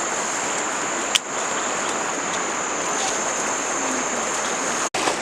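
Steady rush of flowing water with a continuous high-pitched whine over it, a single sharp click about a second in, and the sound cutting out for an instant near the end.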